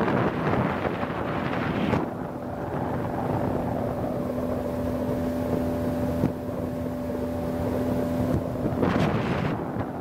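Wind buffeting the microphone over a motorboat engine running steadily under way. A steady engine hum stands out from about two seconds in until shortly before the end.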